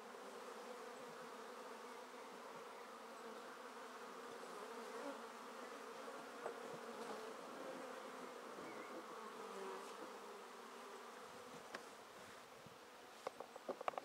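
Honeybees buzzing at a hive entrance, a low, steady hum of many bees together. A few sharp clicks come near the end.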